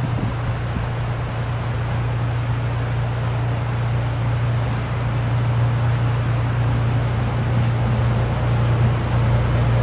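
Narrow-gauge diesel locomotive's engine running with a steady low drone as it approaches slowly hauling coaches, growing slightly louder toward the end.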